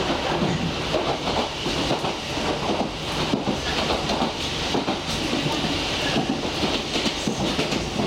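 Running noise of a Toyama Chiho Railway electric train at speed, heard from inside the car: a steady rumble of wheels on the rails with a continual clatter of small knocks.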